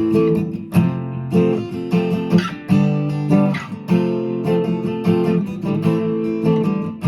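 1994 USA-made Ovation 1767 Legend roundback acoustic-electric guitar strummed in a steady run of chords, each left to ring into the next.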